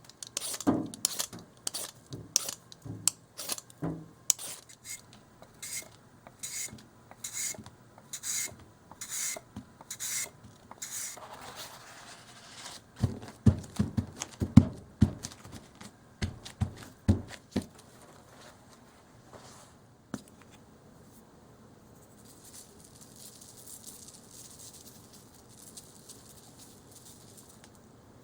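Raw potato scraped against a kitchen blade in quick, even strokes, about two a second, for roughly the first eleven seconds. A run of dull knocks follows a few seconds later.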